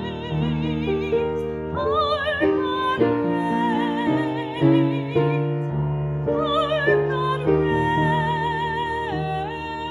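A woman singing a hymn in long held notes with wide vibrato, over sustained keyboard chords that change every second or so.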